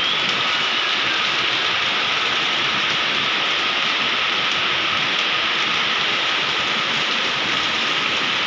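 Heavy rain pouring down onto a flooded paved street, a dense steady hiss with no let-up.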